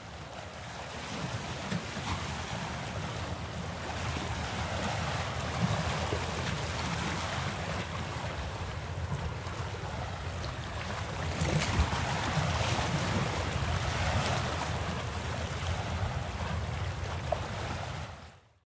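Riverside ambience: wind buffeting the microphone over a steady wash of river water, fading out just before the end.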